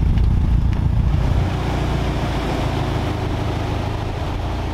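Mitsubishi Lancer Evolution 6.5 Tommi Makinen's turbocharged 2.0-litre four-cylinder engine running steadily with a deep exhaust note, gradually getting quieter.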